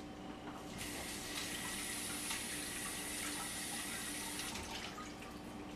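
Kitchen tap running into the sink as an eggplant is rinsed under it: a steady rush of water that starts suddenly about a second in and stops abruptly after nearly four seconds.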